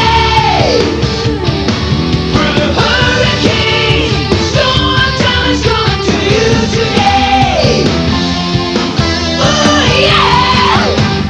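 Rock-style closing theme song with a band and singing. The sung line slides downward in pitch several times.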